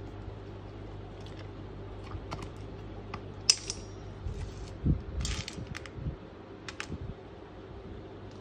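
Dry dog kibble clicking and crunching: a scattered run of short, sharp clicks, the loudest about three and a half seconds in and a cluster a little after five seconds.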